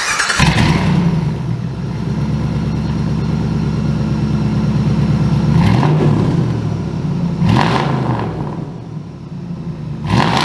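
A 2005 Jeep Grand Cherokee's engine running steadily, revved briefly three times: about six, seven and a half, and ten seconds in.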